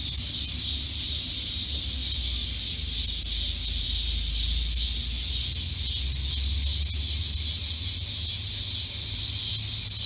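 A chorus of cicadas buzzing: a steady, dense, high-pitched shrill hiss that holds without pause, with a faint low rumble underneath.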